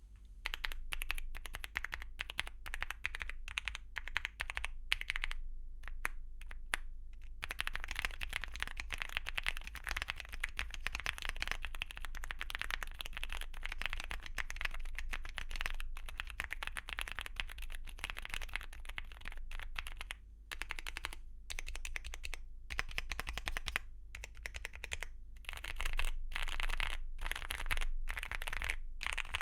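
Typing on a Weikav Lucky65 mechanical keyboard with Akko BitterSweet tactile switches and double-shot PBT Cherry-profile keycaps. Separate keystrokes with short pauses come first. About seven seconds in, this gives way to fast, continuous typing, broken by brief pauses later on.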